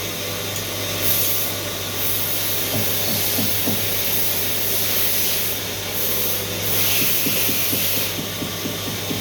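Doosan CNC machine running: a steady low hum under a hiss that swells and drops off several times, with runs of quick faint chirps in the middle and near the end.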